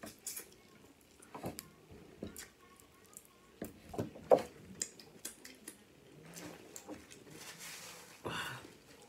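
Wet mouth sounds of someone eating snow crab in seafood boil sauce and licking sauce from her fingers: scattered smacks and clicks, the loudest about four seconds in. A brief rustle of a napkin wiped across the mouth comes near the end.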